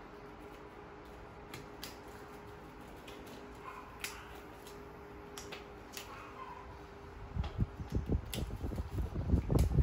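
Latex examination gloves being pulled on, with small clicks and snaps over a steady fan-like hum. From about seven seconds in, loud irregular low thumps and rumbling take over as the recording phone is moved and handled.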